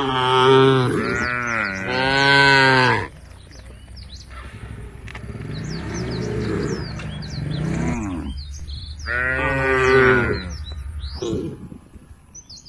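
Cows mooing: two long, loud moos one after the other, a lower, quieter moo in the middle, and another loud moo about nine seconds in. Small birds chirp in the background.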